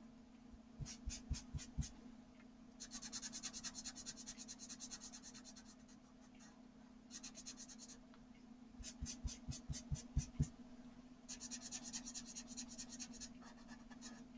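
A blender rubbed in quick back-and-forth strokes over coloured pencil on watercolour paper, a fine scratching that comes in five short spells with pauses between. A faint steady hum runs underneath.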